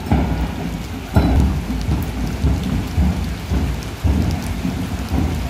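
Steady rain falling, with the dull low thumps of a marching band's drums beating unevenly, the strongest about a second in.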